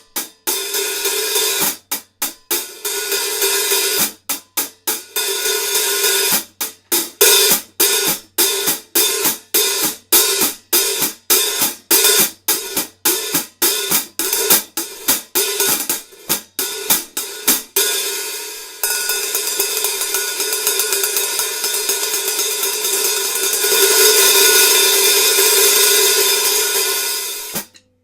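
14-inch Zildjian K hi-hat cymbals played in a run of repeated hits, most of them cut short, about two a second in the middle stretch. Then, about two-thirds of the way in, they ring in a steady open wash that swells and is choked off suddenly near the end.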